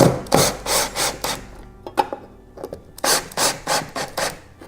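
A pencil marking hole positions on a wooden wall stud: quick scratchy strokes, a run of about four in the first second and another five or six from about three seconds in.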